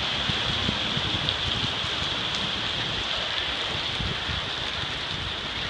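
Heavy rain pouring onto a flooded street, an even, steady hiss, with a car splashing through the floodwater near the start.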